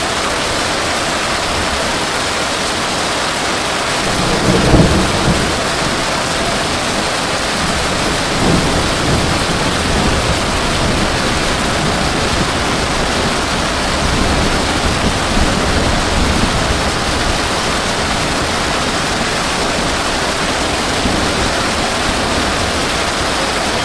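Heavy rain falling steadily, a dense, even hiss, with a loud low rumble about four to five seconds in and weaker low swells later.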